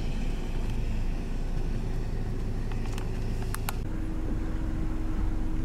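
Steady low rumble of an idling vehicle engine, with a few sharp clicks about three seconds in. Near four seconds the sound changes abruptly and a steady hum joins the engine.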